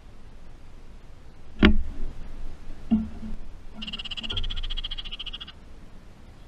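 Baltimore oriole giving its rapid, dry rattling chatter for under two seconds past the middle, after two sharp knocks on the metal feeder.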